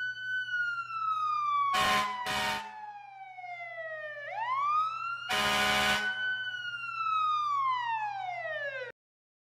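Fire truck siren wailing: a slow fall in pitch, a quick rise, then another slow fall, cut off suddenly near the end. Horn blasts break in twice, briefly, about two seconds in and once, longer, about five seconds in, over a low steady hum.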